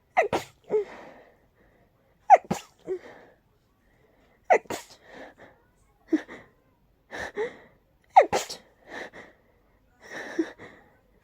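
A person sneezing over and over in a rapid allergic sneezing fit, put down to pollen and dust allergy: about seven sharp, loud sneezes come roughly one to two seconds apart, with short, quieter breaths between them.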